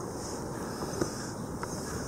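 Wind on the microphone over water lapping close by, with a couple of brief ticks, one about a second in and another past halfway.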